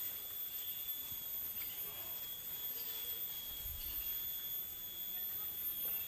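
Steady high-pitched insect drone: several even, unchanging tones over a faint background, with a soft low thump about midway.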